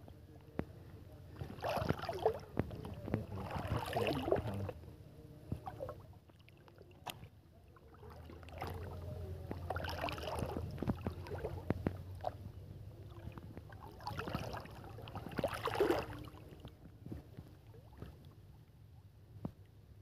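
Shallow water sloshing and splashing as a man wades and pushes a bamboo-framed lift net through it. It comes in three spells of a couple of seconds each, with softer lapping between them.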